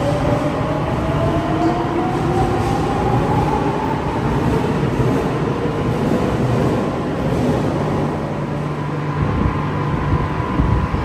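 Madrid Metro Series 7000 electric train accelerating out of an underground station. Its traction motors give a whine that climbs steadily in pitch over the first several seconds and then levels off, over a constant rumble of wheels on rail.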